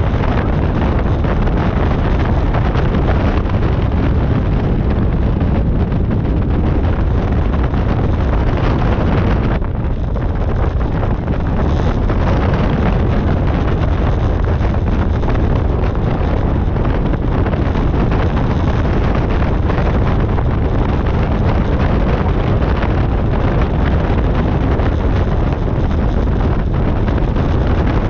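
Light aircraft engine and propeller running steadily while the plane taxis on a grass strip, heavily mixed with wind buffeting on the externally mounted microphone. The sound eases slightly for a moment about ten seconds in.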